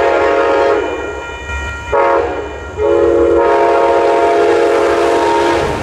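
Multi-note locomotive air horn sounding a chord in three blasts: one cutting off under a second in, a brief toot at about two seconds, then a long blast held for nearly three seconds, over a steady low rumble.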